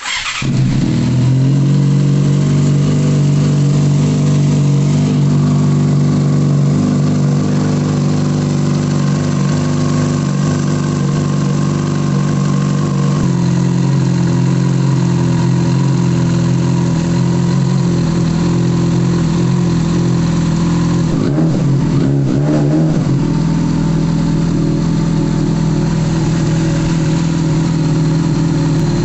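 A Yamaha Fazer 600's inline-four engine starts and settles into a steady idle. Its idle pitch steps up slightly about 13 seconds in. It is running to circulate a water-and-cleaner flush through the cooling system.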